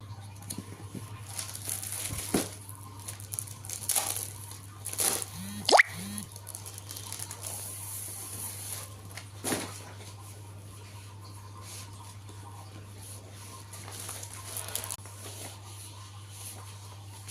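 Packaging and paper being handled and torn open: rustling and crinkling with several short rips, the loudest about six seconds in, over a steady low hum.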